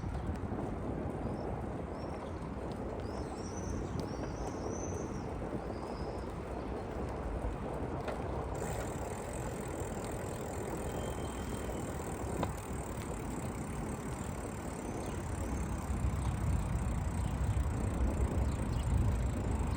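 Bicycle rolling along a park path: a steady rumble and hiss of tyres and riding, getting heavier in the last few seconds. Birds chirp during the first several seconds.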